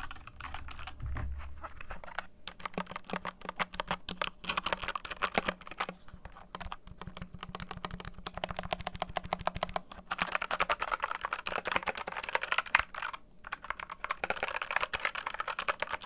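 Fast typing on a Redragon K617 Fizz 60% mechanical keyboard with red linear switches: a dense run of key clacks, broken by brief pauses about four seconds in and again about thirteen seconds in.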